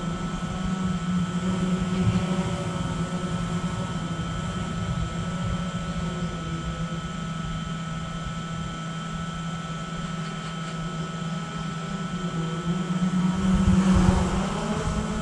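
Small DJI quadcopter's propellers humming steadily in low flight: a droning hum with a few thin, steady whines above it over a low rumble, louder for a moment near the end.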